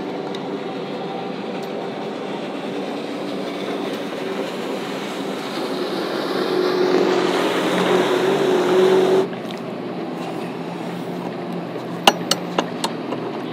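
Motorboat engine drone on the water, growing louder through the middle as it comes closer, then cutting off suddenly about nine seconds in. A few sharp clicks follow near the end.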